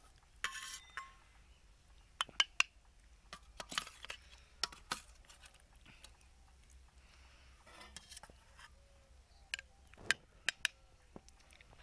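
Steel spoon clinking against a steel bowl while scooping curry: a scatter of short, sharp clinks at irregular intervals, with quiet between them.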